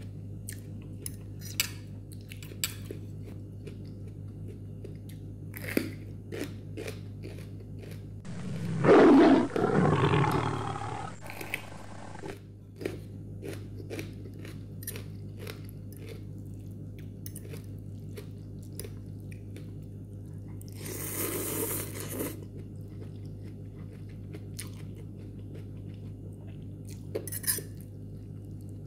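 Close-up eating sounds of instant noodle soup: a metal fork clicking and scraping against a ceramic bowl, with chewing and crunching. There is a loud burst of eating noise about nine seconds in and a shorter one past the twenty-second mark, over a steady low hum.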